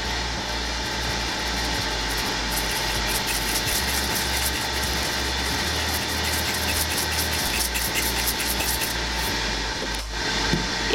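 Steady whirring of a Ninja Foodi Grill's fan as the grill preheats, with a faint rattle of garlic salt shaken from a plastic shaker through the middle of it.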